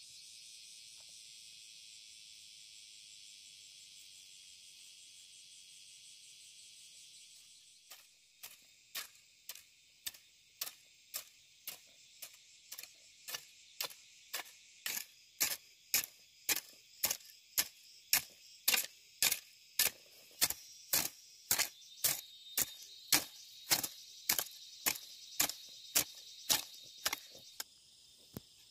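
A steady, high-pitched insect chorus throughout. About eight seconds in it is joined by a regular series of sharp knocks, about two a second, which grow louder and stop shortly before the end.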